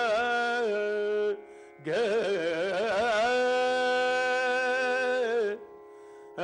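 A man singing an Indian classical raga: long held notes, ornamented with wavering turns. He pauses twice for breath while a faint steady drone carries on underneath.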